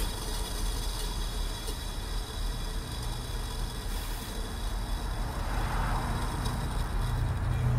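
A steady low background hum with a faint hiss, and soft rustling of a cloth being handled near the end.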